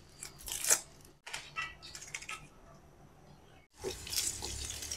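Kitchen knife slicing through a red onion held in the hand, a run of short crisp cuts, with the slices dropping into a frying pan. A low steady hum comes in after about four seconds.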